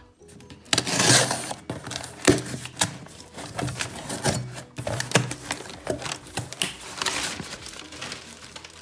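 A cardboard shipping box being opened: a knife slits the packing tape and the flaps are pulled back. It is an irregular run of scrapes, taps and rustles, loudest about a second in.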